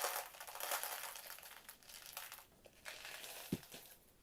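Plastic packaging crinkling as it is handled, fading after about two and a half seconds, with a single soft knock near the end.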